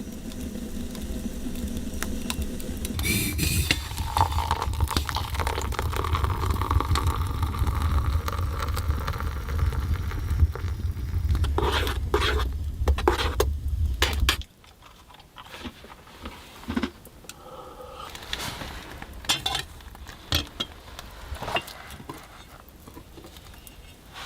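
Light clinking and knocking of dishes and utensils being handled, over a steady low rumble. About halfway through the rumble cuts off suddenly, leaving only scattered separate clicks and knocks.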